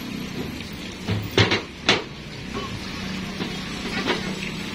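Metal parts of a Tokico 2-inch flow meter knocking and clinking against a steel checker-plate bench as they are handled: two sharp knocks a little over a second in, a third at about two seconds, then a few light clicks, over a steady low hum.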